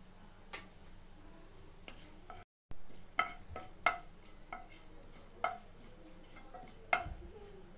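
Cumin seeds frying in hot mustard oil in a non-stick pan, a faint sizzle as they are tempered toward golden brown. After a brief gap, a wooden spatula stirs the seeds and knocks against the pan about half a dozen times with short ringing clacks.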